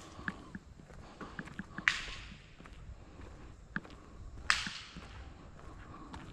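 A person walking on a paved road with a body-worn camera: soft footsteps, and twice a sharp swishing knock close to the microphone, about two and a half seconds apart.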